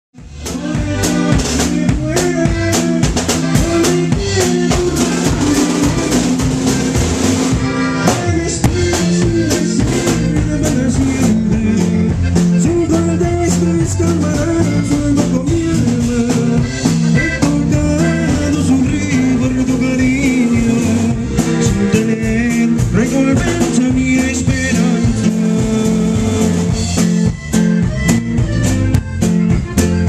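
Norteño band playing live: a red button accordion carries the melody over guitar and a steady drum beat. The music starts abruptly right at the beginning and keeps a steady rhythm throughout.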